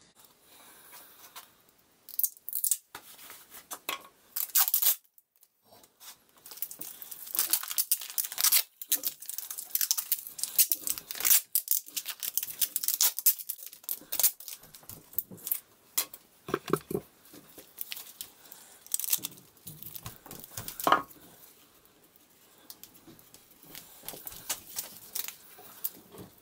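Tyvek tape being pulled off its roll in repeated rips and pressed around a wooden block, with crinkling of the taped surface and a couple of duller knocks as the block is handled.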